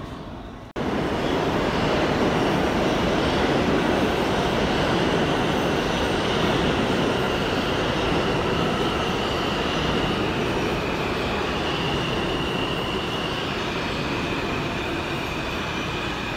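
New York City Subway train running into the station and slowing, a loud steady rumble of wheels and motors with a high whine that shifts in pitch a few times. It starts abruptly about a second in.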